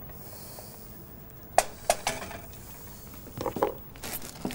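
A wooden spatula knocking and scraping bacon dripping out of a bowl into a frying pan: a string of sharp taps and clinks. The first comes about a second and a half in, two more follow around two seconds, a cluster comes near three and a half seconds, and more come near the end.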